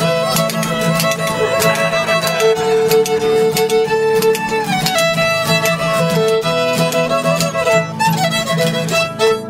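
Live acoustic country-folk music: strummed guitars under a lead instrument playing a melody of long held notes and chords.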